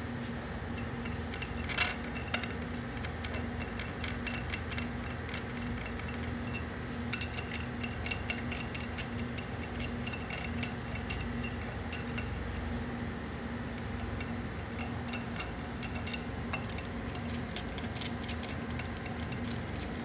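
Light metallic clicking and clinking of hand tools and small engine parts, in quick runs, over the steady hum of a fan.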